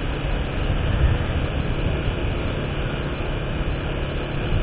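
Steady running noise of a vehicle travelling along a road: a low engine hum under even road and air noise.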